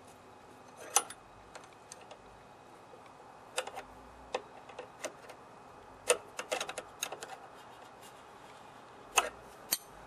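Short metallic clicks and taps of combination wrenches on the rocker-arm lock nut and adjusting nut of an overhead-valve mower engine, as the valve lash is reset. The clicks come singly and irregularly, with a quick run of them about six seconds in.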